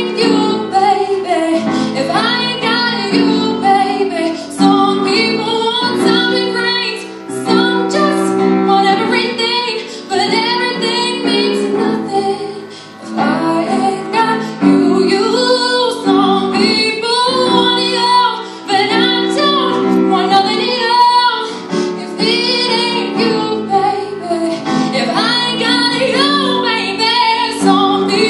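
A teenage girl singing into a microphone, accompanied by an upright piano playing chords under her voice.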